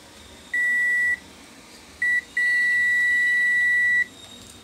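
ANENG digital multimeter's continuity buzzer beeping as its probe tips touch points on a graphics card: a short steady high beep, a very brief blip, then a longer beep of nearly two seconds. The beep signals continuity, a low resistance between the probes.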